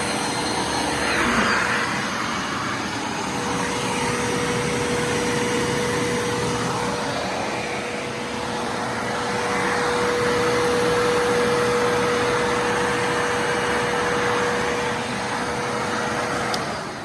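Bissell Lift-off Multi Cyclonic Pet upright vacuum cleaner running steadily, with a constant motor whine over the airflow roar that swells and eases as it is pushed back and forth. It winds down near the end as it is switched off.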